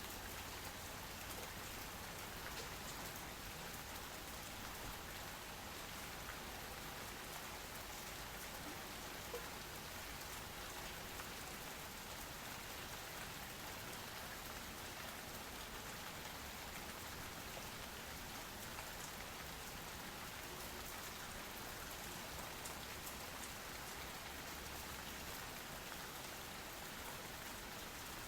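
Steady, even rain with many fine drop ticks, falling on roofs and stone streets, with one slightly louder drop about nine seconds in.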